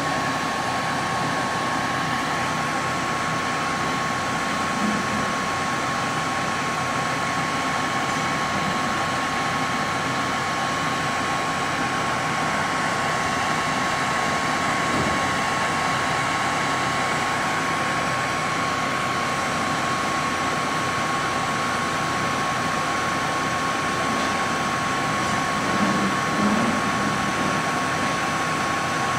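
Hot-air tool blowing steadily, a constant air rush with a steady high whine, with a couple of faint soft knocks.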